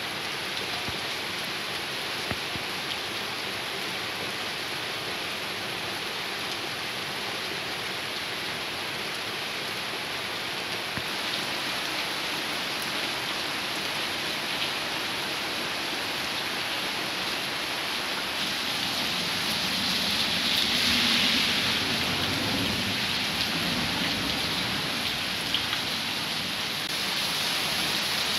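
Heavy rain pouring down in a steady hiss, growing louder around twenty seconds in.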